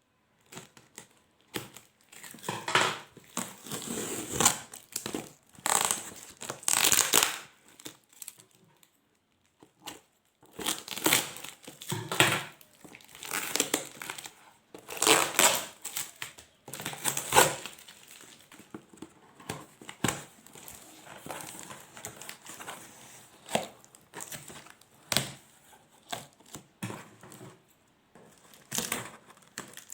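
Helmet packaging being handled and opened by hand: irregular crinkling, rustling and tearing in bursts, with short pauses between them.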